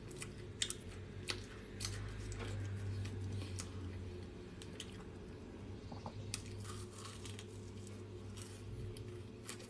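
Close-up chewing of a mouthful of papaya salad and sticky rice: scattered soft, wet mouth clicks and small crunches.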